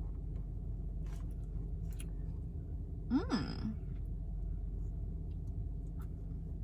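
A person's short appreciative "mmm" hum, rising then falling in pitch, about three seconds in, while tasting a peppermint mocha, over a steady low rumble.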